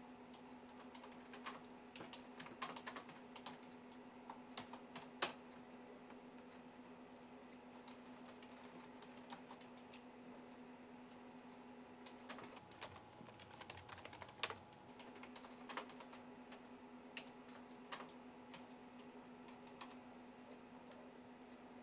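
Keystrokes on a computer keyboard, coming in scattered runs of clicks with pauses between, over a faint steady hum.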